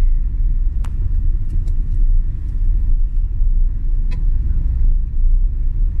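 Steady low rumble of a car driving slowly along a town street, heard from inside the cabin, with a couple of faint clicks about a second in and again near four seconds.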